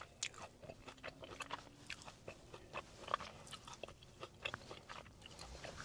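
A person chewing a mouthful of food, with faint, irregular small crunching clicks.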